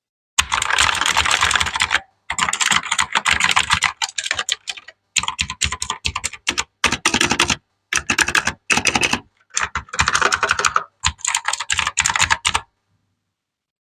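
Fast typing on an Aula F3287 mechanical keyboard with clicky blue switches: dense runs of sharp clicks in bursts of one to two seconds, with short pauses between. The typing stops about a second before the end.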